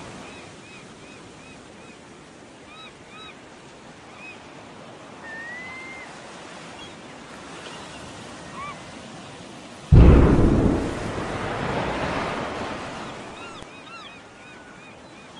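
Surf washing on a beach with birds chirping. About ten seconds in, a sudden loud explosion boom sets in and rumbles away over about four seconds.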